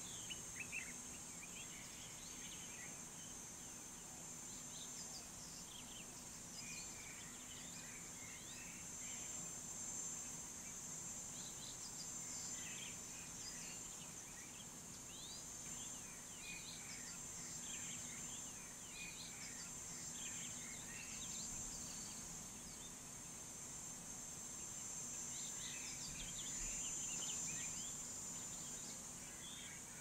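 Outdoor dawn chorus: a steady high-pitched insect drone, with clusters of short bird chirps and whistles coming and going.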